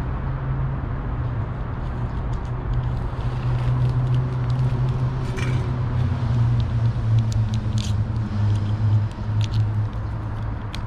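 Steady low engine rumble of a nearby motor vehicle, its pitch drifting slowly, with a few short clicks in the second half.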